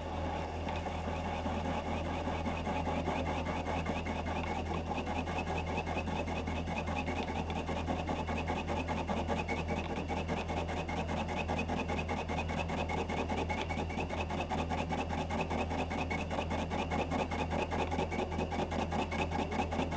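Metal lathe running slowly while the tool takes light cuts in hardened steel, turning an off-centre crank pin on a model-engine crankshaft. A steady motor hum lies under an even, rhythmic cutting noise.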